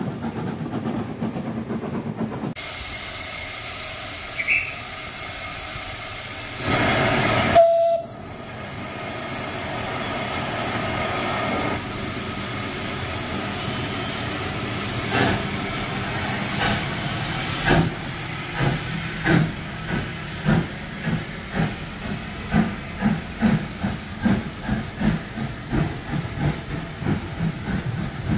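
Steam locomotive getting under way: steam hissing, a loud burst with a short whistle about seven seconds in, then exhaust beats that start slowly about halfway through and quicken steadily.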